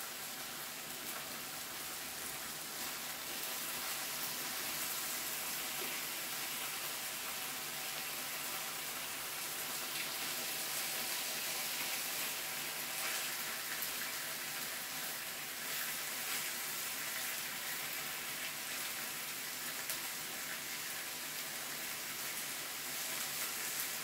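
Meat sizzling on a Korean barbecue grill: a steady frying hiss with occasional faint ticks.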